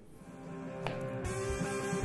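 Background music with guitar, fading in.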